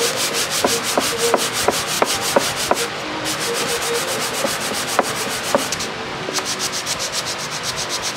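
Sandpaper rubbed by hand over a wooden box in quick, short back-and-forth strokes, taking off the old finish. The strokes pause briefly about three and six seconds in.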